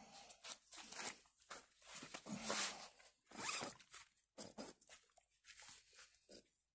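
A series of about a dozen short, irregular rasping scrapes, some brief and some drawn out over a fraction of a second.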